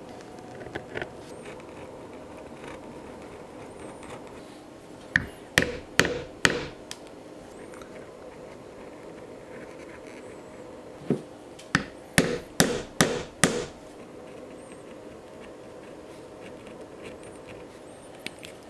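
Knife cutting through leather along a pattern line on a cutting mat, with two quick runs of sharp knocks, about five each, around five seconds in and again around twelve seconds in.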